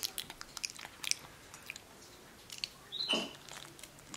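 Capuchin monkey chewing a mushy banana: faint wet smacking and clicking mouth sounds, with a short high squeak about three seconds in.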